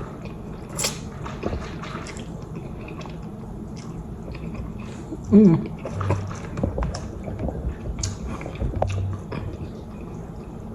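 A person eating ramen close to the microphone: chewing and slurping noodles, with many small wet clicks. There is a brief vocal sound about five and a half seconds in.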